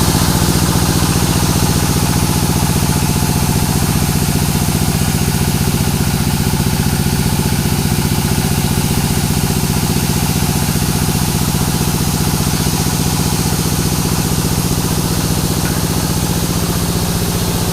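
An engine idling steadily, with an even, rapid pulse that does not change.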